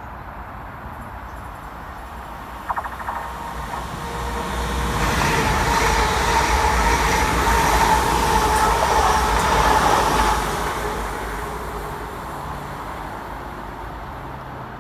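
London Northwestern Railway Class 350 Desiro electric multiple unit passing through the station. It builds up, runs loudest for about five seconds with a steady whine over the rumble of the wheels, then fades away. A short clatter comes before it, about three seconds in.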